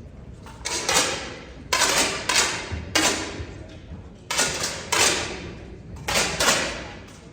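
Air rifles firing on a shooting range, about ten sharp shots at irregular spacing from several shooters, each trailing off in a short echo.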